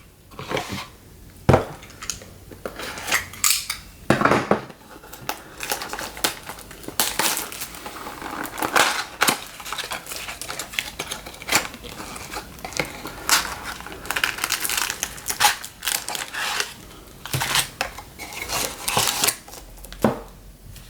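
Cardboard mini box of Bowman's Best baseball cards being opened and unpacked by hand: irregular clicks, scrapes and rustles of cardboard and packaging.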